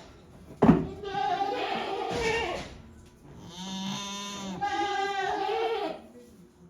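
Goats bleating: three drawn-out calls in a row, the middle one lower and steadier than the other two, with a sharp knock just before the first.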